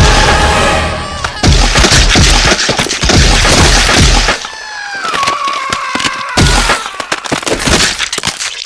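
A dense run of crashing and breaking impacts, with a whistling tone that slides down partway through the middle.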